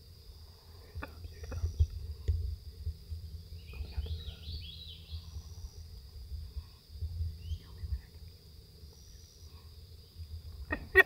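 Steady high-pitched insect trill, with a bird's quick run of falling chirps about four seconds in, over a low rumble and a few faint clicks. A sharp click comes near the end.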